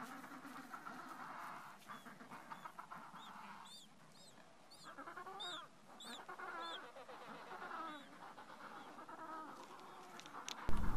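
Adélie penguin chicks peeping: repeated short, high chirps in quick runs over lower, buzzier calling. A louder low hum cuts in just before the end.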